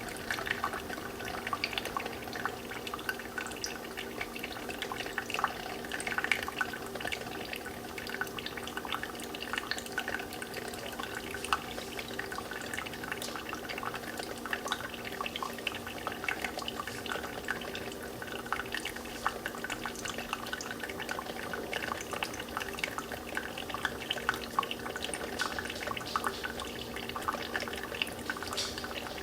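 Brewed coffee trickling and dripping into a glass, a steady, irregular patter of many small drips over a faint steady hum.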